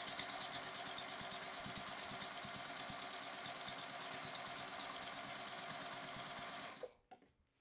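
Juki sewing machine with a walking foot stitching through a quilt at a steady, fast, even rhythm, then stopping about seven seconds in.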